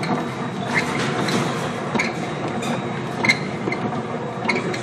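Steady rushing of storm wind and heavy sea aboard a container ship pitching into big waves, with scattered light clinks and knocks.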